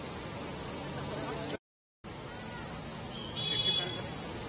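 Steady street noise of traffic wading through floodwater, with a brief gap of silence about one and a half seconds in. Near the end a short high-pitched sound rises above it.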